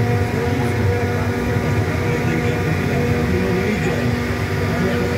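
Vehicle engines running at a motor-show demo area: a steady droning hum with a rough low rumble that swells and eases.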